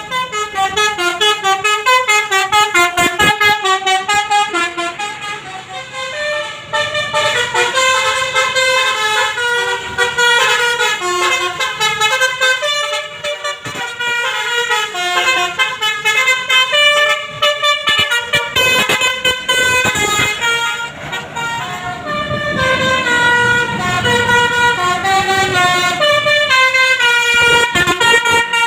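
Bus 'telolet basuri' musical horn playing a long melody of short notes that step quickly up and down, a few of them held longer.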